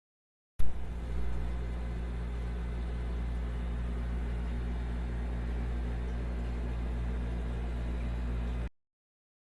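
A steady low mechanical hum with a fast regular pulse. It starts abruptly with a sharp knock and cuts off abruptly near the end.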